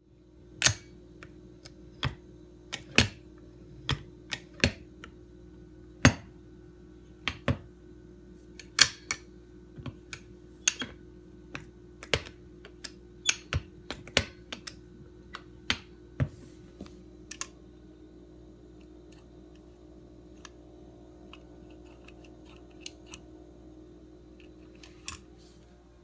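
Sharp metallic clicks and snaps from a metal machine, coming at irregular intervals, some in quick pairs. They are frequent for most of the first two-thirds, then thin out to a few faint clicks, with a steady low hum underneath throughout.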